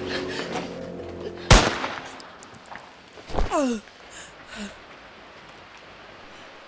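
Film music breaks off with a single loud pistol shot about a second and a half in, followed by a brief thin high ringing tone. About two seconds later a voice cries out once, falling steeply in pitch.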